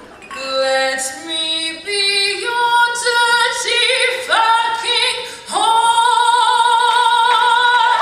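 A woman singing unaccompanied with vibrato: short notes climbing step by step, then a leap up about four seconds in and another about a second later into a long, loud held high note.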